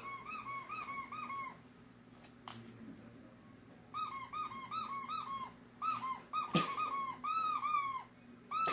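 Squeaky dog-toy sound effect played back: quick runs of short rubber-toy squeaks, about four a second. One run comes at the start, then after a pause of a couple of seconds a longer stretch from about four seconds in to near the end. Two brief knocks come about two and a half seconds in and in the middle.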